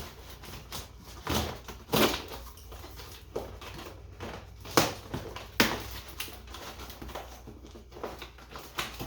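Packaging being pulled and worked at by hand while someone struggles to open it, with irregular crinkling and sharp cracks and knocks every second or so.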